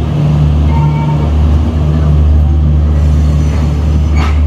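Loud, steady low hum of a large engine running, with a brief hiss about four seconds in.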